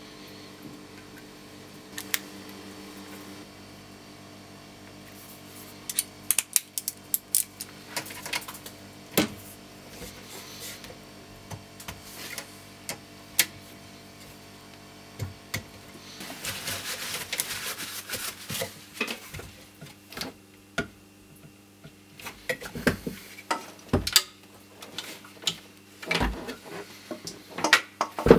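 Small metal parts clicking and knocking as a new GRS stock hinge is fitted to a rifle, with a socket ratchet clicking rapidly for a few seconds partway through as the screws are tightened. A steady low hum runs underneath.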